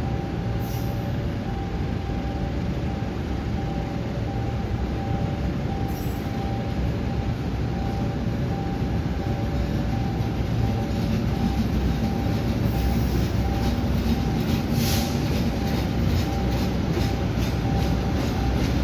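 Passenger train rolling slowly through a station: a steady rumble of wheels on rail with a faint two-note hum, growing a little louder in the second half. A run of regular rail-joint clicks comes near the end.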